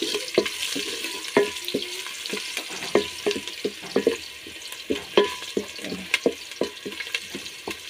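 A wooden spoon stirring sliced onions in a metal cooking pot, knocking and scraping against the pot many times at an irregular pace, some knocks ringing briefly, over a steady sizzle of the onions frying as they brown.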